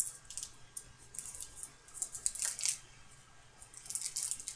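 Hockey trading cards being handled and slid against one another: light, high-pitched clicks and rustles in several short clusters, starting with a sharp click.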